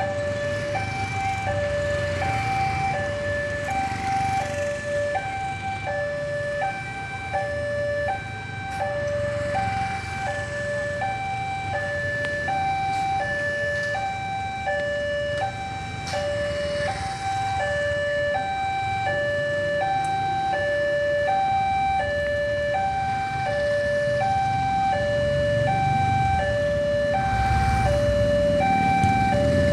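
Railway level-crossing warning alarm sounding a steady repeating high-low two-tone over the running engines of motorcycles and cars in traffic. The engine noise grows louder near the end as vehicles pass close by.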